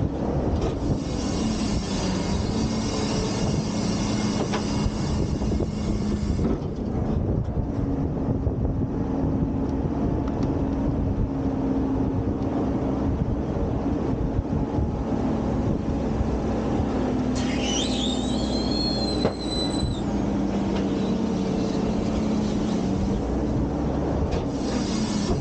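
Front-load garbage truck running, its engine drone stepping up and down in pitch as the hydraulic packer panel cycles to compact trash in the hopper. A high hiss for the first six seconds and again near the end, and a short metallic squeal about two-thirds of the way through.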